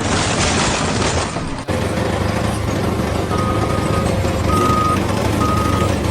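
A heavy vehicle's engine running, with its reversing alarm beeping about once a second from about halfway through. It follows a second and a half of rushing noise that cuts off sharply.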